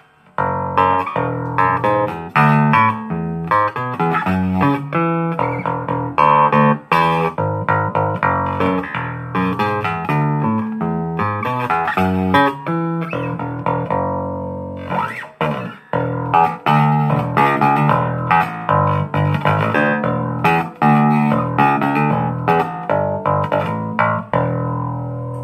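Chinese-made replica of a Rickenbacker electric bass played on its bridge pickup alone, with a bright, powerful tone. A busy run of plucked notes and short riffs, with notes left ringing about halfway through.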